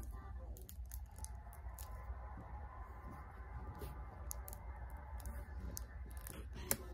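Fingers picking at the plastic shrink-wrap seal and cap of a plastic drink bottle: faint crinkles and small clicks, with one sharp click near the end, over a steady low hum.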